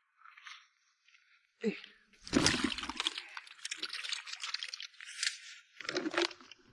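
Water splashing and pouring: a dense, crackling run of about three and a half seconds that starts about two seconds in, and a shorter splash near the end.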